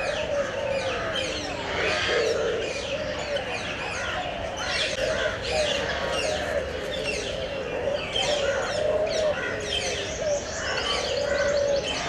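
A dense chorus of many small birds chirping, their quick chirps overlapping without a break, with a low wavering call underneath.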